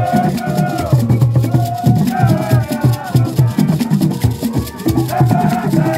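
Borborbor music played live: hand drums beating a steady rhythm, with hand-clapping and sharp percussion strikes, and a group singing over it.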